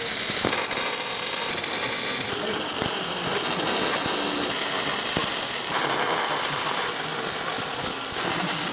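MIG welding arc crackling steadily as steel plate and caster mounting plates are tack-welded. The crackle changes in tone twice.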